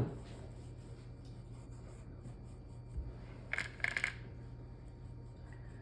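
A soft knock, then a quick cluster of short sharp clicks about three and a half to four seconds in, over a steady low hum.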